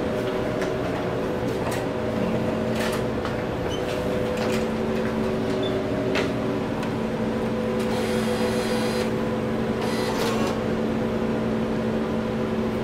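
Steady machine hum made of several held tones, with scattered light clicks and knocks and a brief whir about eight seconds in.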